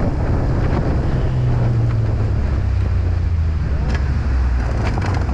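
Snowmobile engine running as it tows a sled across snow, with wind buffeting the microphone. The engine note falls about halfway through as the machine slows.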